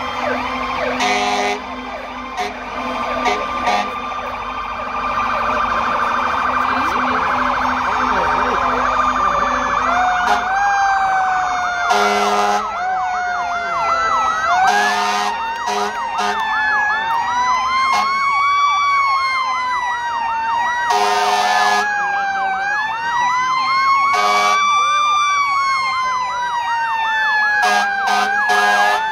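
Several fire and rescue vehicle sirens sounding together: slow rising-and-falling wails over a fast yelp. Short loud horn blasts break in several times.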